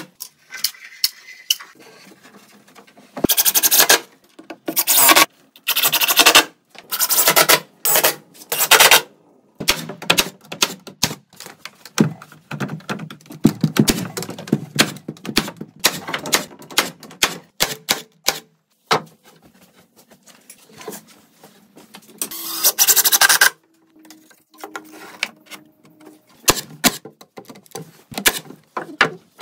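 Cordless impact driver driving screws into 2x10 framing lumber in repeated bursts of about half a second to a second, with a few single sharp knocks between them.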